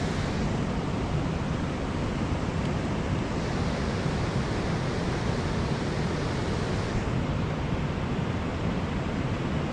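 Steady rushing noise of wind and waves, with no distinct events.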